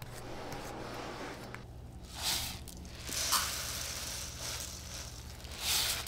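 Kitchen handling noises: rustling and hissing that swells twice, about two seconds in and near the end, over a faint steady low hum.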